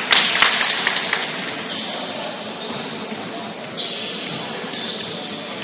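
A basketball bouncing several times on a hardwood gym floor in the first second or so, each bounce ringing in the large hall, over indistinct voices.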